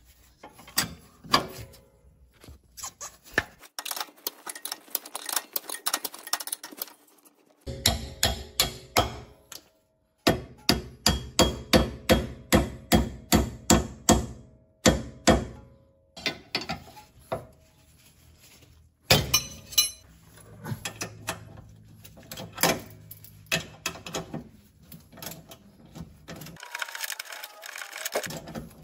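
Hand tools working loose the rear sway bar end link and lower shock bolt: runs of sharp metallic clicks and knocks, in the middle an even run of about three strikes a second.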